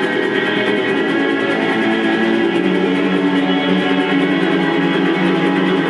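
Live band playing improvised music, with guitar prominent; a dense, steady wash of sound with no breaks.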